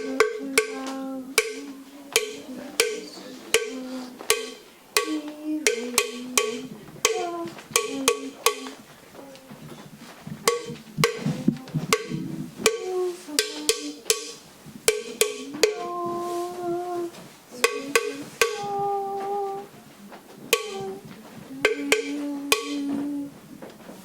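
Cattle call: short pitched calling notes, a few held for about a second, mixed with many sharp clicks and knocks at an irregular rhythm.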